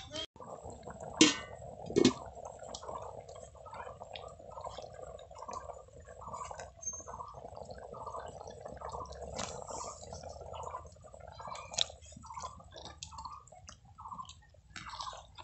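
Curry simmering in a metal wok while chunks of cut vegetable are dropped in one by one, each a soft wet plop, about two a second. Two sharp clanks sound about a second apart near the start.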